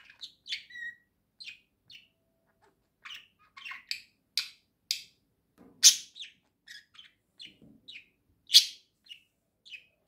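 Budgerigars chirping: a string of short, sharp chirps and warbles with a brief pause early on, and two louder calls about six and eight and a half seconds in.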